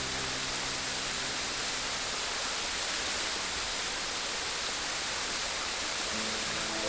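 Steady rushing water, an even hiss without breaks. Faint background music notes fade out in the first couple of seconds and come back near the end.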